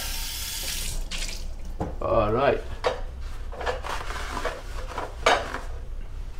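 Kitchen tap running into the sink for about a second as a plate is rinsed, then cutting off; light clicks and knocks of dishes and counter items follow.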